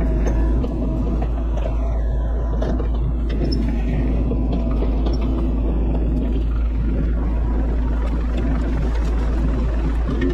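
Bobcat E42 mini excavator's diesel engine running steadily under work.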